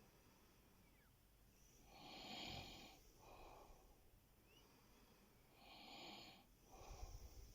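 A man snoring in his sleep, faint: two slow breaths about four seconds apart, each a long rasping in-breath followed by a shorter breathy out-breath.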